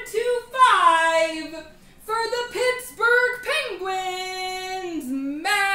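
A single high-pitched voice singing a wordless tune unaccompanied, with long held notes and pitch slides.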